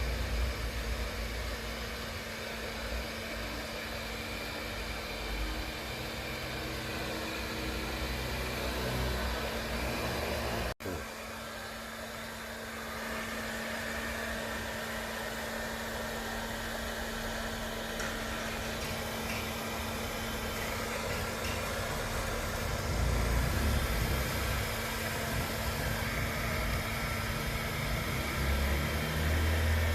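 Hand-held hair dryer blowing steadily with a constant hum, drying a freshly washed dog's coat. The sound cuts out for a split second about 11 seconds in.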